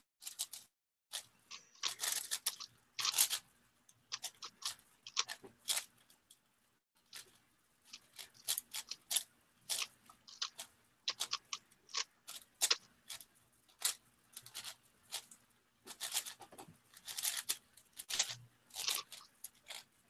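A Megaminx puzzle being turned quickly by hand: irregular runs of short plastic clicks and scrapes as its faces are twisted.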